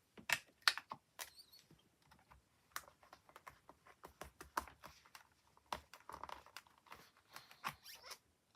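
Irregular light clicks and taps of craft supplies being handled on a work table, a few sharper knocks about half a second in.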